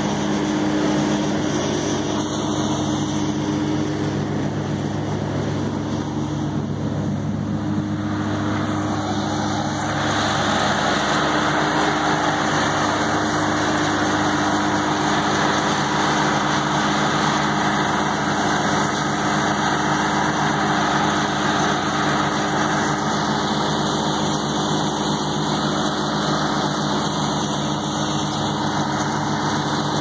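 Trailer-mounted wood chipper running steadily with its engine at speed, a steady mechanical hum under a broad whirring noise that grows somewhat louder about ten seconds in.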